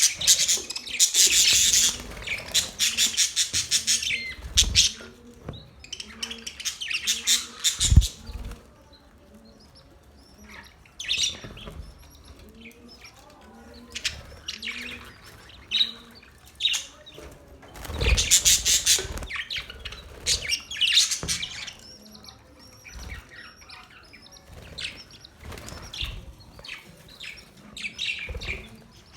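Pet budgerigars chirping and chattering in bursts of rapid high-pitched notes, with quieter stretches between, and a low thump about eight seconds in.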